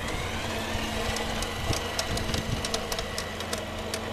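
Battery-powered model diesel locomotive running on garden railway track: its electric motor gives a high whine that climbs a little at the start, then holds steady, with a run of sharp clicks from the wheels on the track.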